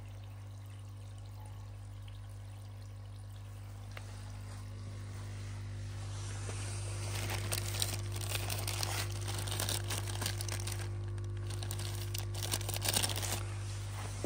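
A plastic bag crinkling and rustling as a hand handles the bagged pond-pump unit, dense and crackly from about halfway through, over a steady low electric hum.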